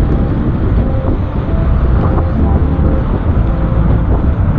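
Wind rushing over the action camera's microphone, with tyres hissing on wet tarmac as a mountain bike descends fast. A few light rattles from the bike come through.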